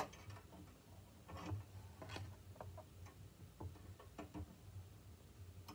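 Faint, scattered light clicks and ticks of small metal parts: a VEX shaft collar being fitted onto the axle and its set screw worked with a small hex key.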